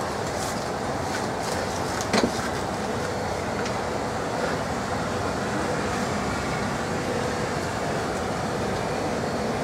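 Steady hum and air noise inside the cabin of a Bombardier CRJ700 airliner parked at the gate, its ventilation running, with one short knock about two seconds in.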